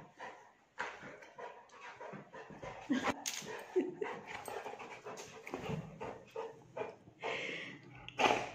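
Saint Bernard puppy panting in short, irregular breaths as it plays on a bed, with a louder burst of noise near the end.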